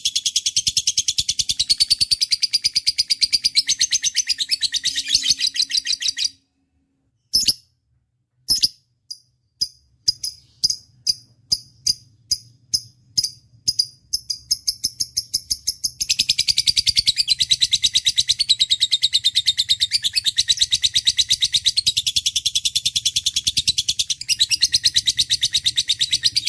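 Songbird singing a fast, continuous, high chattering trill; it breaks off about six seconds in, gives way to a run of single high chirps at roughly two a second, and the rapid chattering returns about sixteen seconds in and cuts off sharply at the end.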